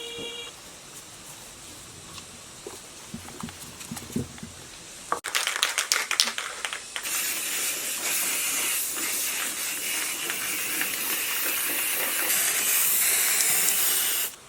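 Aerosol spray can rattled briefly, then a steady spray hiss lasting about seven seconds that cuts off suddenly near the end.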